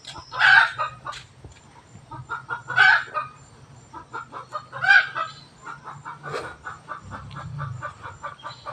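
Chickens clucking, with louder single calls every couple of seconds and a quick run of short clucks at about four or five a second in the second half.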